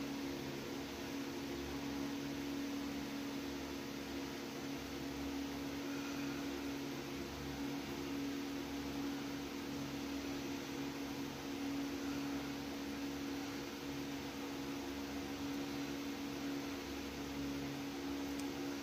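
Steady hum of a small electric motor running, with a constant tone and a faint hiss.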